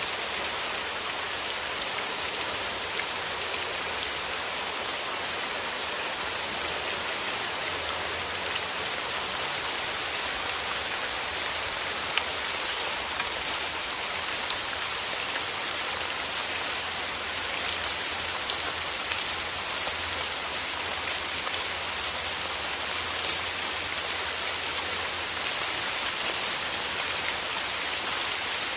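Steady rain falling, a dense even hiss with many small sharp drops striking hard surfaces.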